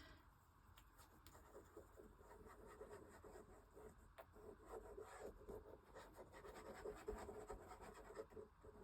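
Faint scratching and rubbing of paper on a journal page as acrylic glue is spread and the paper handled, with small ticks throughout.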